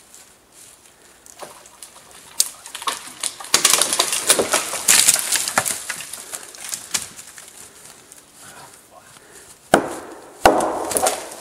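Axe chopping into a tree trunk: a couple of lighter strikes, then a few seconds of crackling and cracking wood in the middle, and two heavy chops near the end. The tree is hung up on its neighbours and being chopped free.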